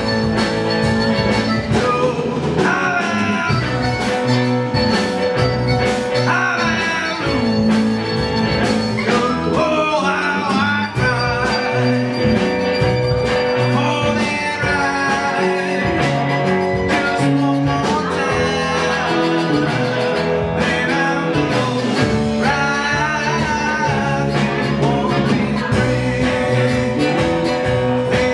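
Live folk-rock band playing at full volume: electric guitar, electric bass, mandolin and a drum kit, with a steady beat.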